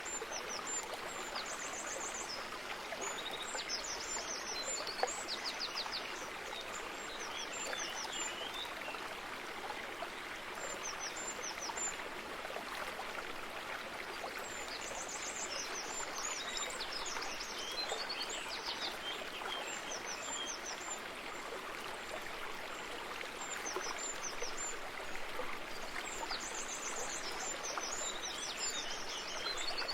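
Running water of a stream or brook, a steady rushing, with small songbirds chirping and trilling in short high phrases that recur every several seconds.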